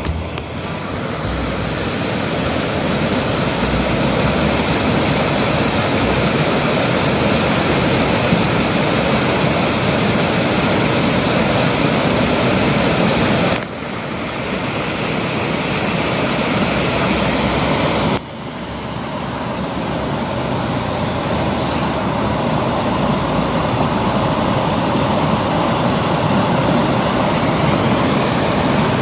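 Steady rushing of water flowing at a dam. It drops sharply three times, at the start and about 14 and 18 seconds in, and builds back up over a few seconds each time.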